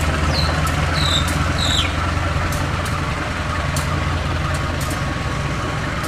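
Diesel locomotive engine idling with a steady low hum. Three short high chirps sound in the first two seconds.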